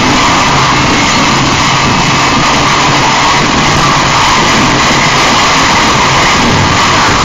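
Harsh noise music: a dense, steady wall of distorted static with a low drone underneath, unbroken and without rhythm.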